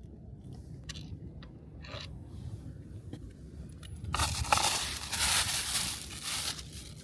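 Packing material being crushed and scraped. A few light clicks and taps come first, then a loud crinkling scrape lasts about two and a half seconds in the second half.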